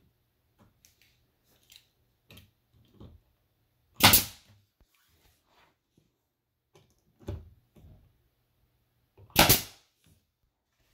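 Pneumatic DeWalt pin nailer firing twice, two loud sharp shots about five seconds apart, pinning the bottom edge of a glued plastic wall tile into the studs. A quieter knock comes between the two shots.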